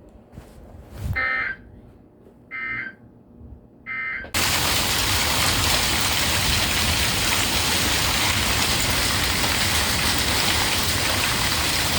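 Heavy rain pouring down, starting abruptly about four seconds in as a loud, steady, even hiss. Before it come three short electronic tone bursts a little over a second apart.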